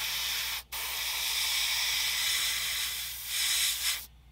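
Airbrush spraying thin yellow acrylic paint: a steady hiss of air and paint that breaks off for a moment about half a second in, then runs on and stops shortly before the end.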